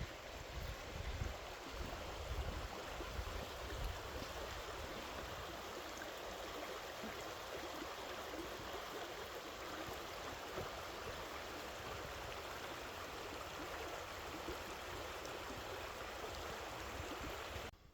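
Steady rushing of flowing water, with some low rumbling in the first few seconds; it cuts off suddenly near the end.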